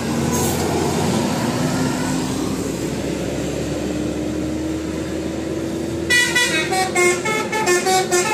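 Bus running with a slowly rising engine note. About six seconds in, its telolet horn starts playing a tune of short stepped notes.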